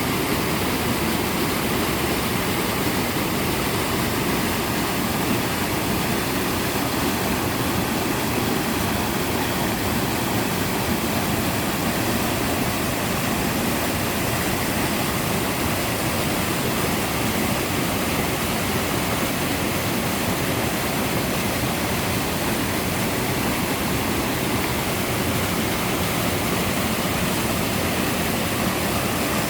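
Mountain-stream waterfall pouring steadily, a constant rush of water.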